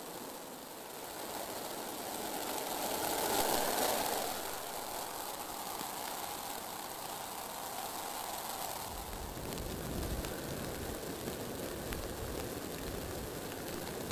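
Storm wind outdoors: a steady rushing with a louder swell about three to four seconds in. From about nine seconds in, low rumbling wind buffets the microphone.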